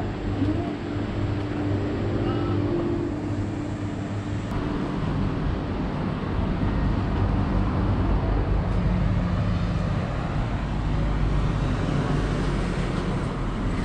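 Outdoor road traffic noise: a steady low rumble of passing vehicles, with a steady low hum in the first few seconds.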